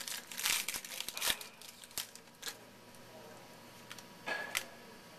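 Baseball card pack wrapper being torn open and crinkled by hand, in crackly bursts through the first second and a half and again briefly about four and a half seconds in.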